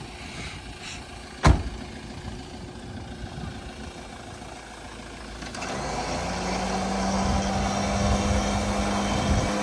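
Vehicle engine running over rough ground, with one sharp knock about a second and a half in. From about halfway the engine gets louder, with a steady hum.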